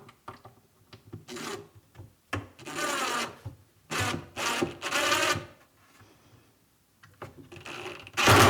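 Cordless drill/driver running in short bursts, driving screws for a drawer slide into the plywood cabinet side. There are about six bursts, each with a whine that rises and falls, and the last one near the end is the loudest.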